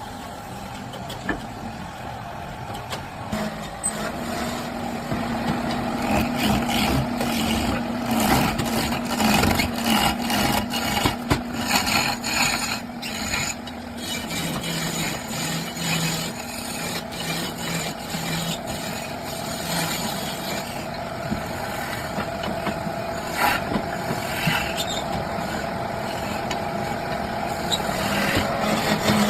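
Wood lathe running with a steady hum while a turning tool cuts and scrapes the spinning wood, the rasping noise rising and falling with the cut.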